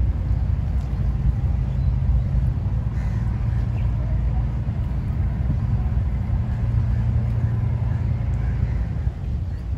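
Steady low rumble of bumboat engines running at the ferry jetty.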